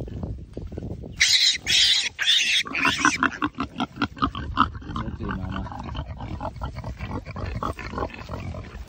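Piglets squealing shrilly for about a second and a half, starting about a second in, followed by a quick run of short grunts from the sow, which is upset at the disturbance to her litter.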